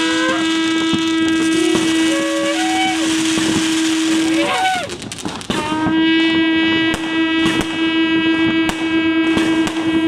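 Shofar blown in long, loud held blasts: one steady note stops about four and a half seconds in, there is a brief sliding squeak, and a second long blast begins about a second later. Shorter sliding notes sound above it early on. From about seven seconds in, firework bangs and crackles go off repeatedly over the blast.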